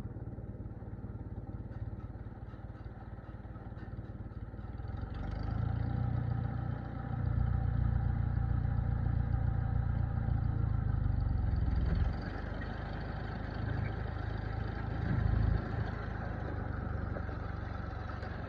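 Tractor engine running under load as it drives an Allis-Chalmers Roto-Baler through the PTO, the long-idle baler turning over freely. The engine grows louder about five seconds in and drops back about twelve seconds in.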